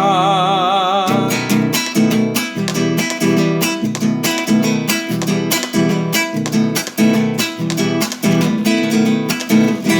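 A sung note held with vibrato ends about a second in, then an acoustic guitar strums chords in a steady rhythm as an instrumental passage of the song.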